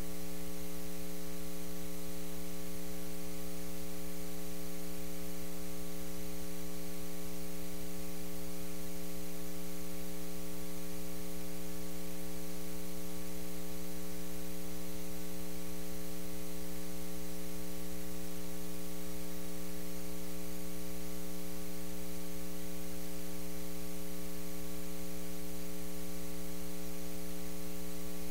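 Steady electrical hum with hiss, a buzz made of several fixed tones that never changes.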